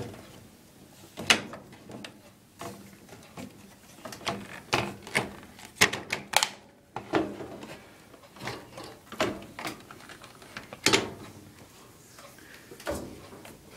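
Irregular clicks, taps and knocks of parts being handled, about a dozen sharp ones spread unevenly, the loudest just over a second in and about eleven seconds in.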